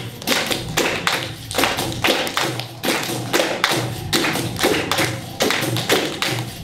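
Hand percussion playing a steady capoeira rhythm: sharp strikes about two to three a second, many of them with a low, drum-like tone underneath.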